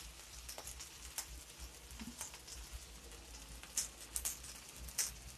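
Faint scattered crackling and ticking from a dosa crisping on a hot tawa, with light spatula contact; a few louder clicks come near the end.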